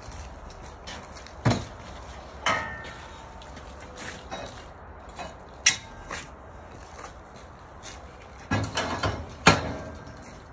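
Metal scaffold tubes and fittings clanking and knocking as a tube is handled and fitted into a modular scaffold: a string of sharp knocks, one ringing briefly, with a quick cluster of them near the end.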